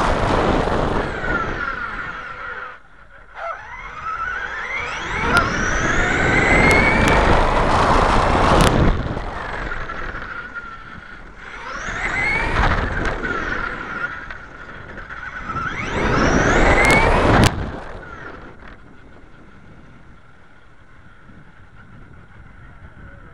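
Traxxas E-Revo brushless RC truck driving, heard from its onboard camera: the electric motor's whine rises in pitch with each burst of throttle, several times, over tyre and wind noise. About three-quarters of the way in it stops accelerating and the sound drops to a faint steady hum.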